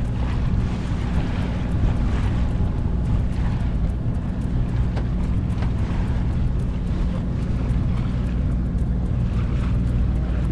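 A boat's engine running steadily while under way, a constant low drone, with water rushing past the hull and wind on the microphone.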